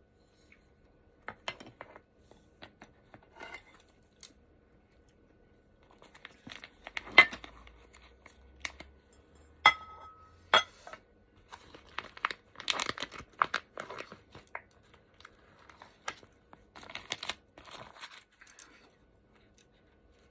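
Close-miked eating sounds: food crackling and crunching, and utensils clicking against dishes. The crackles come sparsely at first and bunch up more densely in the second half, with one sharp, ringing clink about ten seconds in.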